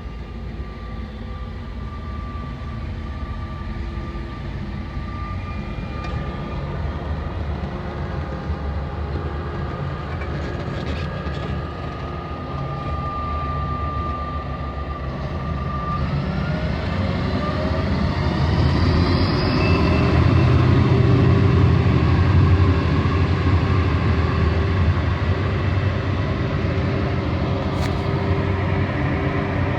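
Palesse GS10 combine harvester running while threshing wheat: a steady mechanical drone with a high whine. About halfway through the whine rises in pitch and the machine gets louder, then holds there.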